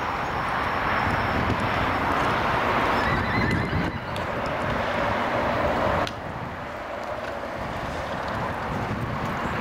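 A pony's hooves cantering and landing on a sand arena surface under a steady rush of outdoor noise. The level drops suddenly about six seconds in.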